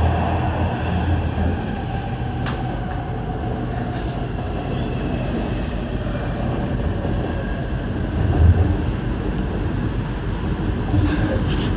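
Shenzhen Metro Line 1 train running along the track: a steady rumble with a faint whine that falls in pitch over the first few seconds.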